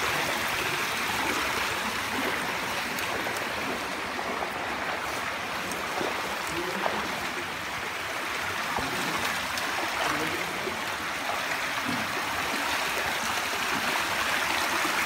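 Steady rush of running water from a stream inside a cave, with a few light knocks over it.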